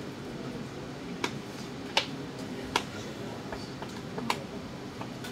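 Steady room noise with a few scattered short, sharp clicks and taps, four of them clearer than the rest.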